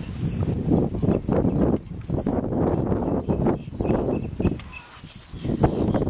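Red-winged blackbird giving the same short, high call note three times, about two and three seconds apart. Low wind rumble on the microphone runs underneath.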